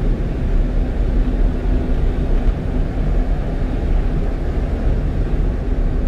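Steady road noise from a 1-ton truck cruising at highway speed, heard inside the cab: an even low rumble of tyres and engine with a faint steady hum.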